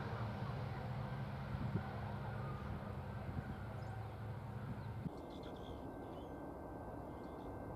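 A low, steady engine drone that cuts off suddenly about five seconds in. After it comes quieter open-air background with small birds chirping briefly several times.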